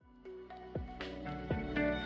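Background music fading in: a melody of sustained notes, each new note starting every quarter to half second.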